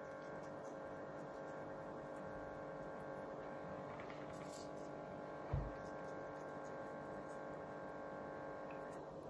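Faint, steady electrical hum made of several even tones, with one soft low thump about five and a half seconds in.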